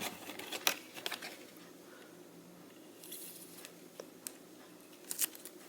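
Faint scattered clicks and soft rustling of plastic trading-card holders being handled while a thick patch card is fitted into one.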